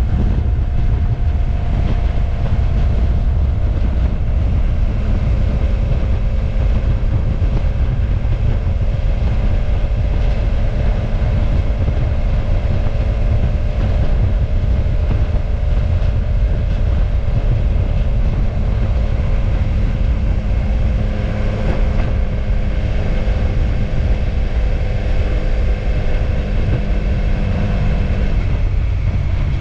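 Motorcycle engine running at a steady cruise, its note easing slowly lower over the stretch, under heavy low wind rumble on the microphone.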